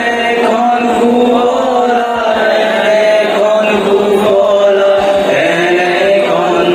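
A group of men and women singing together in unison into microphones, in long, slowly changing held notes.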